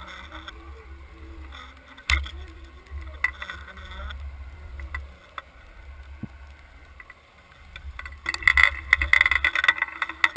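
Muffled low rumble of water rushing past an action camera's waterproof housing as it is towed underwater. There is a single sharp knock about two seconds in, and a louder crackling hiss in the last couple of seconds.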